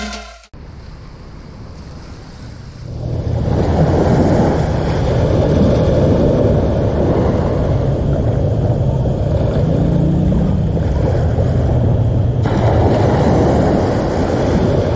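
Surf washing onto a sandy beach, with wind rumbling on the microphone; it grows louder about three seconds in and then stays steady.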